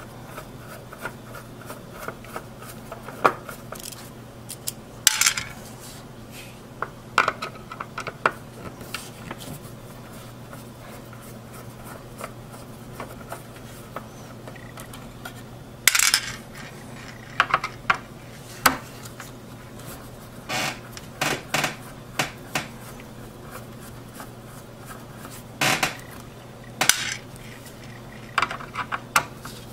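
Phillips screwdriver turning small metal screws out of a Radeon HD 4870 graphics card's board and heatsink assembly: scattered sharp metallic clicks and clinks, some single and some in short runs.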